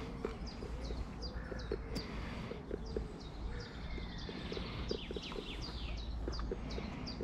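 A small songbird calling: a long run of short, high chirps repeated over and over, above a steady low rumble.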